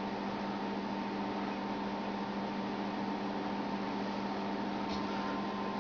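Steady electrical hum with a constant hiss, several fixed low tones and a thin higher tone held without change; a faint tick about five seconds in.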